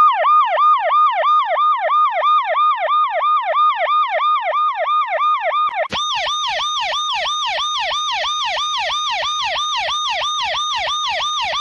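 Emergency-vehicle siren in a fast yelp, its pitch sweeping up and down about three times a second. About halfway through it switches to a brighter, buzzier version of the same yelp with a low pulsing buzz underneath.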